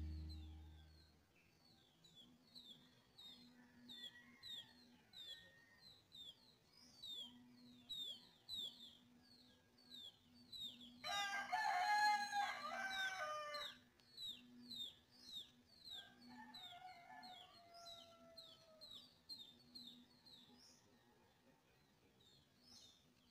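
A rooster crows once, a pitched call about three seconds long near the middle, over a small bird repeating a short falling chirp about twice a second. A fainter second call follows a few seconds later.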